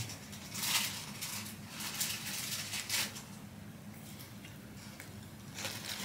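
Paper burger wrapper crinkling in a few short bursts while a Whopper is handled, bitten and chewed. A low steady hum runs underneath.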